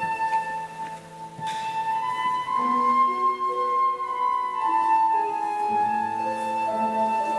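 Concert flute playing a slow melody of long held notes, with grand piano accompaniment beneath.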